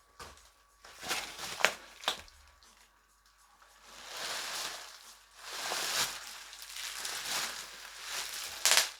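Rustling of packaging and a few sharp knocks as a rubber bumper plate is handled, with a louder click near the end.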